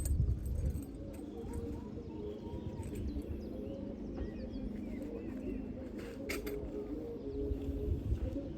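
Birds calling outdoors, with short low coos and small chirps, over a low rumble with a few knocks at the start and again near the end.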